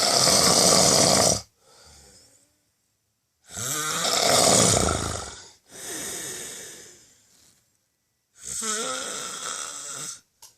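A person snoring loudly: long, heavy snores about every four seconds, each followed by a quieter breath.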